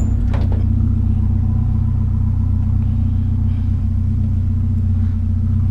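Vehicle engine running steadily with an even low hum.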